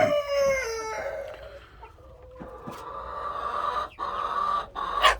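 A rooster crowing, the long last note falling in pitch as it trails off, followed by quieter clucking from the chickens. There are a few sharp knocks, the loudest near the end.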